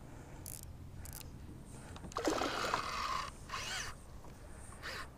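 Baitcasting reel's drag buzzing as a hooked northern pike pulls line against it, a run of about a second starting roughly two seconds in, followed by a shorter burst.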